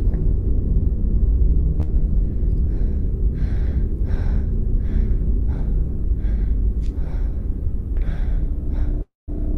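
A horror film soundtrack: a steady low rumbling drone, with a person's rapid, frightened breathing, about two breaths a second, coming in a few seconds in. The sound cuts out briefly near the end.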